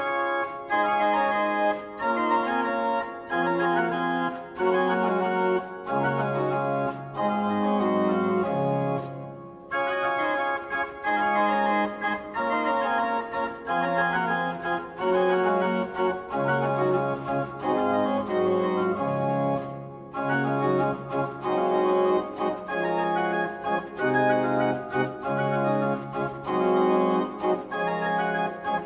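Pipe organ played on the manual: held chords over a slowly moving bass line, phrase after phrase, with brief pauses between phrases about ten and twenty seconds in.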